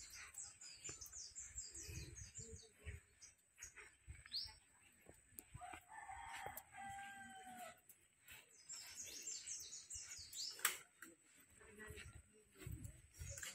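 A rooster crows once, a drawn-out call about six seconds in, over rapid high chirping of small birds. A single sharp click comes near the end.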